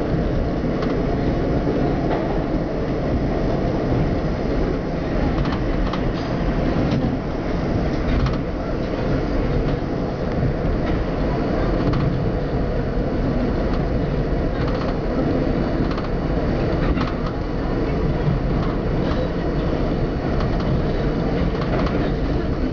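R42 subway train running through a tunnel: a steady, loud low rumble of wheels on the rails, broken by scattered sharp clicks.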